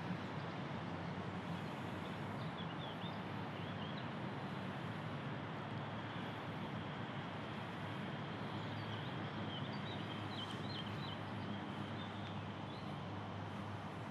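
Outdoor park ambience: a steady low background hum with small birds chirping faintly in short twitters, a few early on and a cluster about two-thirds of the way through.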